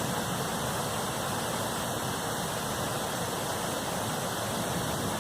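Rain pouring down steadily in a thunderstorm, an even hiss with no thunderclap.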